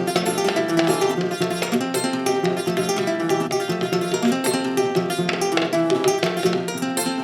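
Live instrumental music on a plucked string instrument: a dense, steady run of picked notes with a repeating bass figure and no singing.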